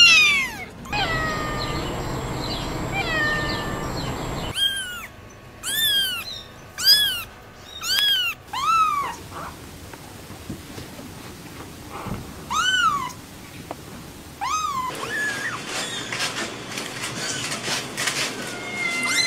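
Very young kittens mewing: a string of short, high-pitched mews, each rising then falling in pitch, coming about once a second for a stretch, then singly.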